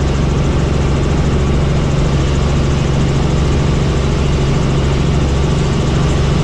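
Helicopter in flight, its engine and rotors running with a loud, steady drone and a low hum.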